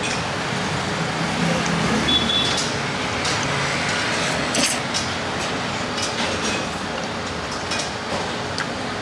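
Steady background hum of street traffic and a busy eatery, with a few sharp clicks scattered through it.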